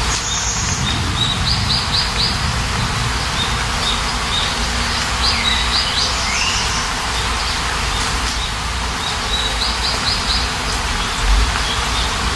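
Steady rain with small birds chirping over it: several quick runs of high chirps, and a swooping call about five seconds in.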